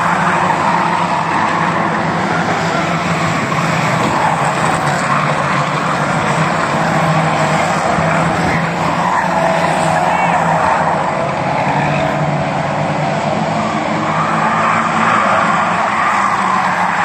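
A pack of ministox race cars running together around a tarmac oval, their small engines revving and easing off through the bend in a steady, overlapping racket.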